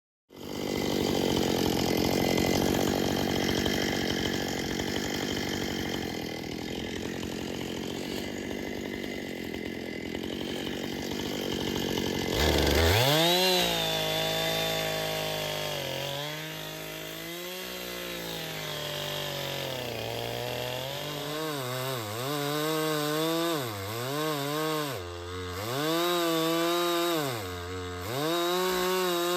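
Chainsaw in an Alaskan chainsaw mill ripping lengthwise through a cherry log. For about the first twelve seconds there is a dense, rough cutting noise. Then the engine note comes through clearly, wavering up and down, and toward the end it repeatedly dips and recovers as the load or throttle changes.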